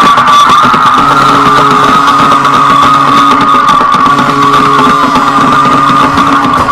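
A loud horn held in one steady, slightly wavering tone, blaring over arena music with changing chords.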